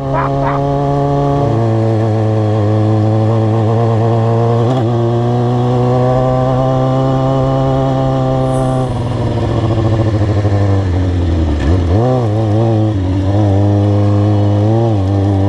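Kawasaki Ninja ZX-6R 636's inline-four engine running steadily under way, its note stepping to a new pitch about a second and a half in. About halfway through, the pitch wavers up and down with the throttle for a few seconds, then settles back to a steady cruise.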